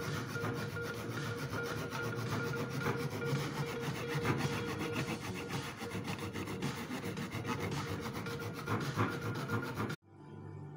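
Small back saw cutting a wooden moulding strip in a miter box, with steady back-and-forth rasping strokes. The sawing cuts off suddenly near the end.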